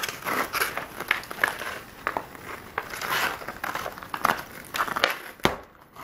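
Hockey skate blades scraping and crunching over a thin, fragile glaze of ice on concrete, with sharp taps and clicks of a hockey stick on the puck and ice. One stronger crack comes about five and a half seconds in.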